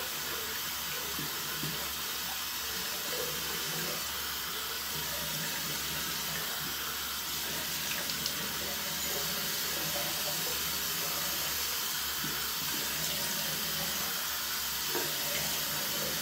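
Bathroom sink tap running steadily into the basin, with a few small splashes as hands are rinsed and water is splashed on the face.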